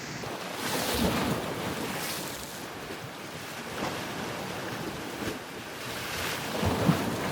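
Ocean surf breaking and washing in, swelling in several surges a few seconds apart.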